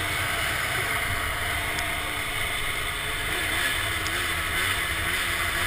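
Snowmobile engine running steadily as the sled rides across snow, its pitch wavering slightly up and down.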